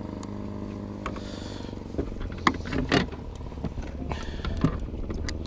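A boat's motor running with a steady low hum, with a few short knocks and clatters of gear against the boat about two to three seconds in and again near the end.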